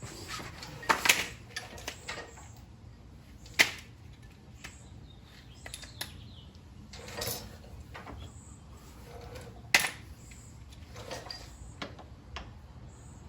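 Metal hand tools clinking and clanking in scattered sharp knocks, as wrenches are handled and tried on a brake-line fitting. The loudest knocks come about a second in, near four seconds and near ten seconds.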